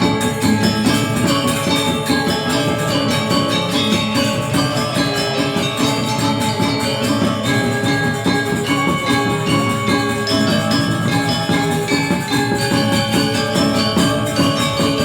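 Balinese gamelan music: metallophones striking a fast, dense run of ringing pitched notes at a steady loudness.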